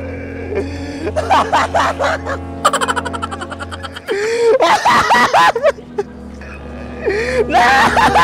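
Background music with a steady bass, overlaid with bursts of laughter about a second in, around five seconds in and near the end.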